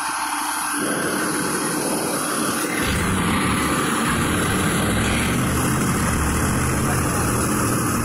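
Fire engine's diesel engine running with a steady low hum, its low rumble swelling in about three seconds in and staying loud.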